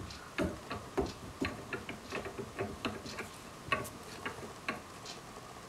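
Irregular small metallic clicks and ticks as the Stanley 71 router plane's adjuster is worked a little at a time along its threaded stud, whose threads are deformed and binding.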